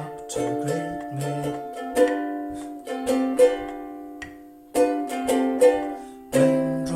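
Ukulele strumming chords, with several single strums left to ring out for a second or more between quicker strokes.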